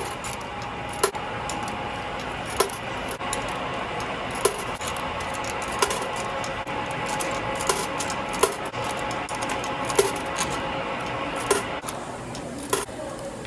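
Wascomat Senior W125 35-pound commercial washing machine running early in its cycle: a steady hum with sharp clicks or knocks about every one and a half seconds as the drum turns.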